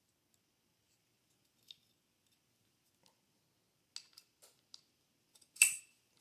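Small metal AR-15 lower parts clicking as they are handled and pressed together: scattered light clicks, then a loud sharp snap near the end as a spring-loaded pin is pushed into place.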